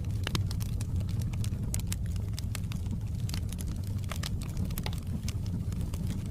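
Wood fire in a fireplace crackling: irregular sharp pops and snaps, several a second, over a steady low rush of the flames.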